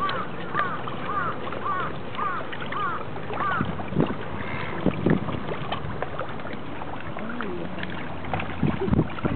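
Outdoor pond ambience with a steady wash of water and wind, and a bird calling in short repeated chirps, about two a second, for the first few seconds. A few soft knocks come a little after.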